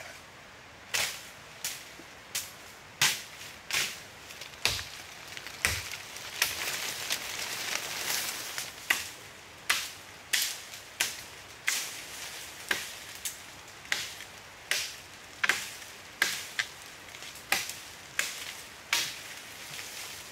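Wood being chopped with a blade in a steady run of sharp strokes, about three every two seconds.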